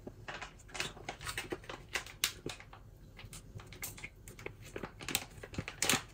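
Faint, irregular light clicks and taps of a spoon against spice containers and the cooking pot as ground spices are measured in.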